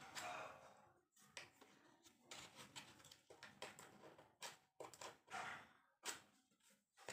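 Faint, irregular clicks and scrapes of hard plastic: green plastic legs being handled and pushed onto the frame of a toy tabletop pool table.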